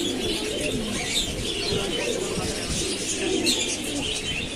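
Many caged domestic pigeons cooing at once in a steady, overlapping chorus, with short higher chirping calls over it.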